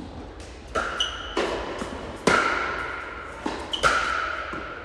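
Tennis rally: a ball struck back and forth with rackets, sharp strikes about every second or so, each with a short ringing ping, and softer knocks of the ball bouncing just before some of the hits.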